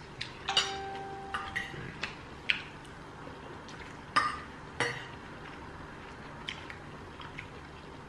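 Metal cutlery clinking and scraping on ceramic plates during a meal. The clinks come irregularly; one strike about half a second in leaves a short ringing tone, and the clinks grow fainter after about five seconds.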